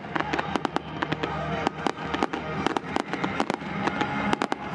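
Fireworks display: a rapid, irregular volley of sharp bangs and crackles from aerial shells bursting, several a second, with music playing underneath.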